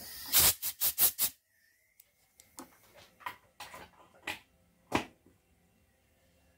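Sharp clicks and knocks of hard objects: a quick run of about five near the start, then single clicks spaced out over the next few seconds.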